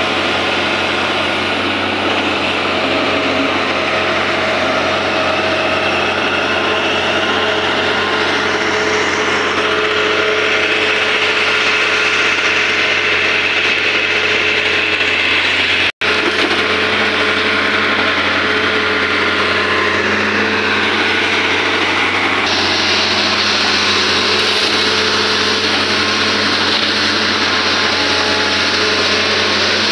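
Tata Hitachi hydraulic excavator's diesel engine running steadily under working load close by, as the machine digs and swings its bucket. The sound cuts out for an instant about halfway through.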